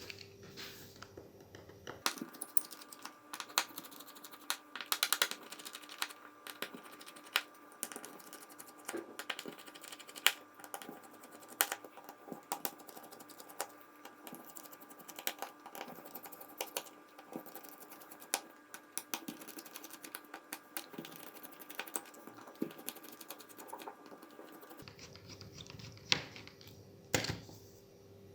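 Small screwdriver working the tiny screws out of a Samsung Note 8's back plate: many quick, irregular light clicks and ticks of the metal tool on the screws and phone, with a faint steady hum under most of it.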